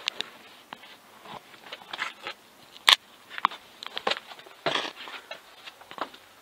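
Footsteps scuffing and crunching on limestone and loose grit, a string of irregular scrapes and clicks with one sharp click about three seconds in.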